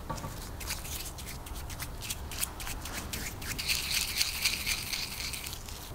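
Small paintbrush scrubbing liquid onto a small metal part, the bristles scratching in quick, irregular strokes that turn denser and more continuous from about three and a half seconds in until near the end.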